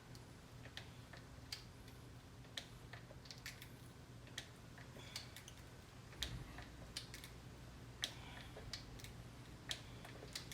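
Hand oil pump being stroked to push gear oil into a car's rear differential: faint, irregular clicks about one or two a second, over a low steady hum.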